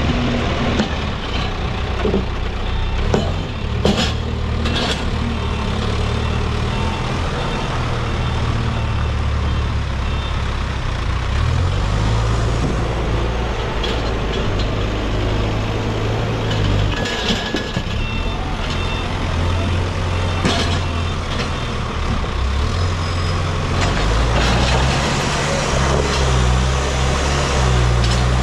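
Case backhoe loader's diesel engine running under working load, its speed rising and falling several times, with a few short knocks scattered through.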